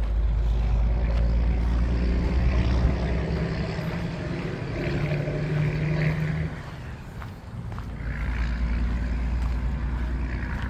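A motor engine running with a low hum, dropping away about six and a half seconds in and then coming back.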